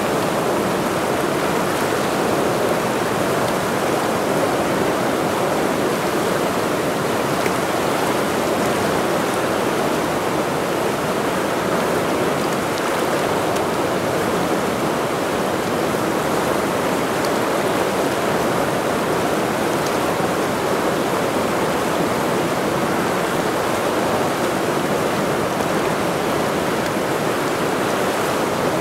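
The Ursul, a mountain river, rushing steadily, an even roar of water that holds the same level throughout.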